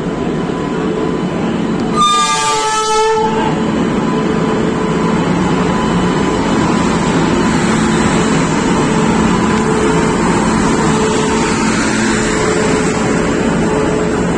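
An express train arriving: a short horn blast about two seconds in, lasting about a second and a half and sagging slightly in pitch, then the steady rumble of LHB passenger coaches rolling past along the platform.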